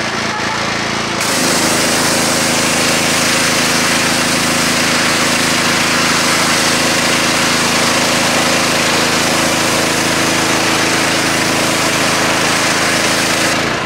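Small gas-engine pressure washer running steadily; about a second in the wand's trigger opens and the high-pressure water jet hisses against the asphalt, and the engine's note shifts as the spray starts. The spray stops just before the end.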